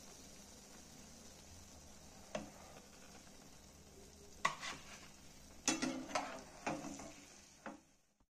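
Potato-and-pea patties sizzling gently in a pan of hot oil, with a steady faint hiss. A metal slotted spatula knocks and scrapes against the pan once at about two seconds in and several times more in the second half.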